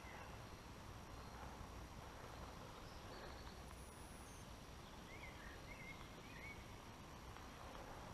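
Quiet outdoor ambience: a faint low rumble, with a few faint short bird chirps a little past halfway through.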